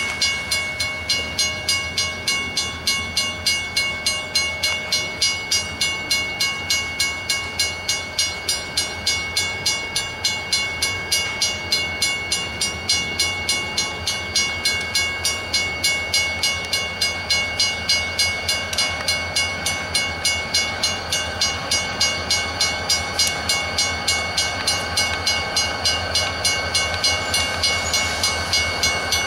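Railroad grade-crossing warning bell ringing steadily with evenly spaced strikes while the crossing signals flash for an approaching train.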